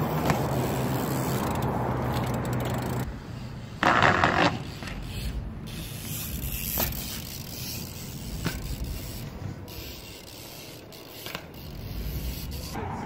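BMX bike riding on concrete: tyres rolling, with a loud short scrape about four seconds in and a few faint sharp knocks after it.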